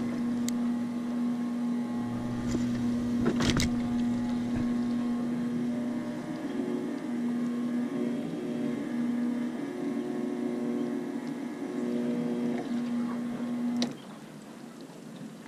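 Motorboat engine running at a steady pitch, starting suddenly and cutting off suddenly near the end, with a couple of sharp knocks about three and a half seconds in.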